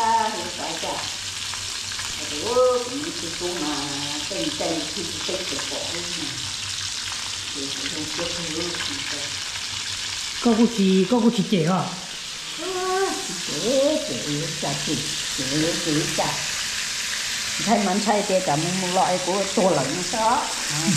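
Steady sizzling of food frying in a hot pan, with voices talking over it, loudest a little past the middle.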